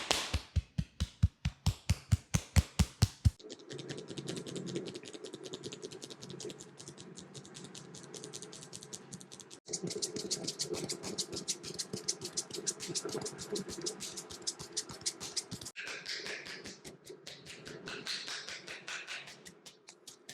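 Rapid, rhythmic hand strokes of a percussive massage, tapping and slapping several times a second. The first few seconds are louder, sharper slaps at about four a second, and the sound cuts off and resumes abruptly twice.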